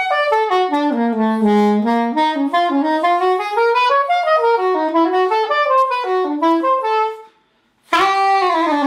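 Soprano saxophone playing a solo melodic phrase of quick stepping notes, dipping to its lowest notes about a second in and climbing back up. It breaks off briefly near seven seconds, then starts a new phrase that slides downward.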